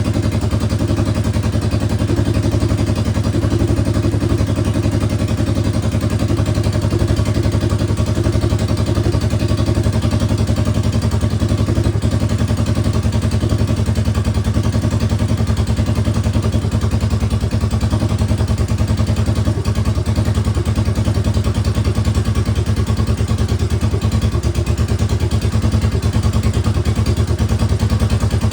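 Suzuki DR650 single-cylinder four-stroke engine, bored out to 790 cc, idling steadily through a new exhaust, running at an even speed without revving.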